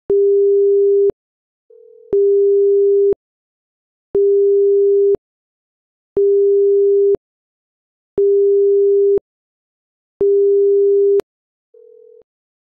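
Electronic earthquake-alert beeping from a seismograph monitoring stream: a steady low beep about a second long, repeating every two seconds, six times. A fainter, slightly higher short warbling tone sounds twice in the gaps, near the start and near the end.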